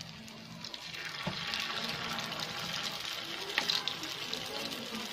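Spoonfuls of vegetable batter sizzling in shallow hot oil in a frying pan, the sizzle coming up about a second in, with a couple of sharp clinks of metal spoons against the pan.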